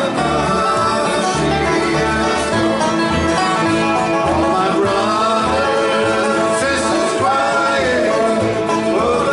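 Bluegrass band playing live: banjo and guitar over a steady bass line, with a held, sliding melody on top.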